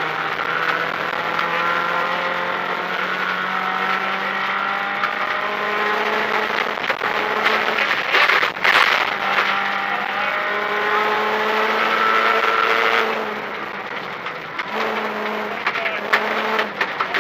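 Renault Clio rally car's engine heard from inside the cabin, held at high revs and climbing slowly under full throttle along a gravel stage, with gravel crackling against the car. About thirteen seconds in it backs off for a moment, then pulls hard again.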